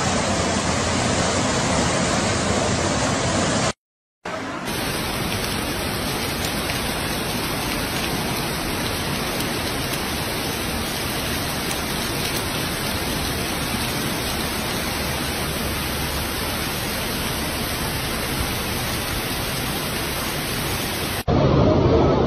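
Torrential rain and rushing floodwater, a steady, even hiss of water. First floodwater pours down escalators into a metro station. After a half-second gap about four seconds in, heavy rain falls on a flooded street, and near the end the rain gets louder.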